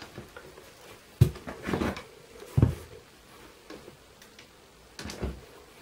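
Plastic shower-gel bottles being set down and handled on a table: three dull knocks about a second apart, with light rustling between them.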